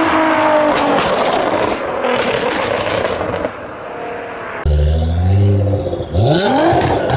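Nissan GT-R engine revving hard, its note held high and then dropping off about a second in, with short sharp exhaust pops and crackles. About four and a half seconds in a deep low engine note starts suddenly, and near the end the revs climb again.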